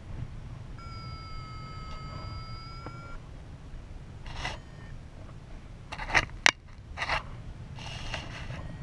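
Steady wind rush on the microphone of a paraglider in flight, with the variometer giving one long tone about a second in that rises slightly in pitch over two seconds. Short rustles around four and a half, six and eight seconds in, with two sharp clicks, the loudest sounds, around six seconds in.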